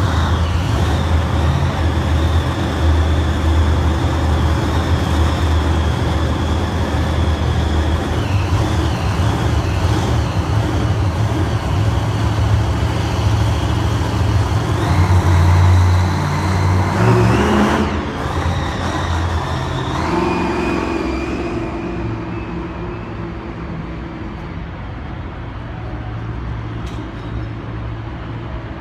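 Monster truck engine running loudly and steadily, a deep rumble with a high whine over it. It surges louder around the middle, then settles to a lower level for the last third.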